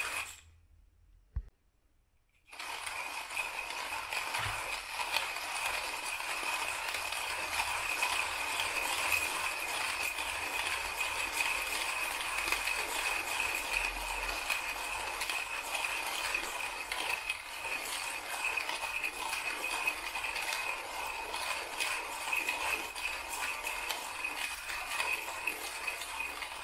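Timemore C2 manual coffee grinder's steel burrs crunching coffee beans as the handle is cranked continuously, grinding at a coarser setting for filter coffee. The grinding starts about two seconds in, after a brief quiet pause.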